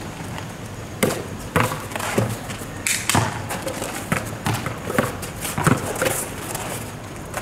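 Basketball bouncing on an asphalt court as it is dribbled: a run of sharp bounces, roughly one every half second, mixed with the players' sneakers scuffing the asphalt.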